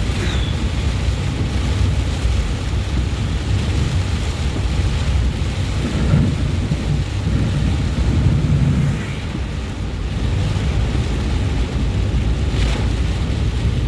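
Steady low rumble and hiss of a car driving through rain, with a couple of louder low swells in the middle.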